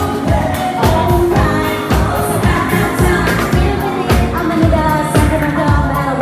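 Live band playing a pop song with a lead singer, drum kit hits keeping a steady beat under bass and keys, picked up raw by a phone's microphone.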